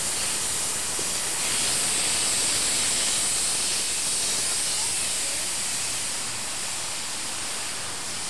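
Steam locomotive R707, a Victorian Railways R class 4-6-4, venting steam in a steady hiss, a little louder in the first half and easing off toward the end.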